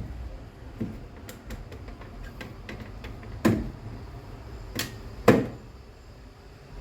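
Plastic fridge shelves and parts knocking and clicking as they are fitted back into the fridge. There are light clicks throughout and three louder knocks in the middle.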